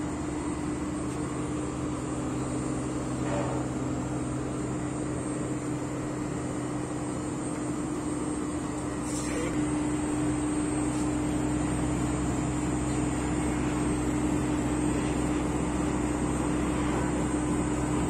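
LG Multi V5 VRF outdoor unit running: steady whirring of its compressor and fans with a constant low tone, a little louder from about ten seconds in.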